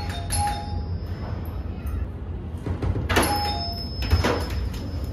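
Electronic doorbell chime ringing at the start, then the clicks and knocks of the door's latch and the door being opened from inside, with another short chime tone about three seconds in.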